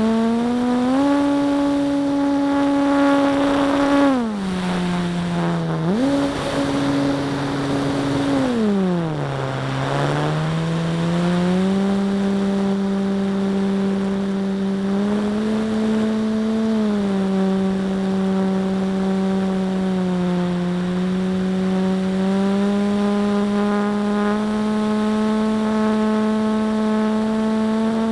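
A radio-controlled model warbird's motor and propeller, heard from a camera mounted on the plane, drone at a steady pitch. The pitch drops twice as the throttle is eased, about 4 and 9 seconds in, and climbs back each time, then holds with small rises and falls.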